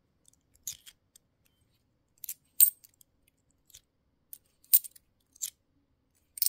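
50p coins clinking against each other as they are handled and sorted: a scattering of sharp, brief metallic clicks, the loudest about two and a half and nearly five seconds in.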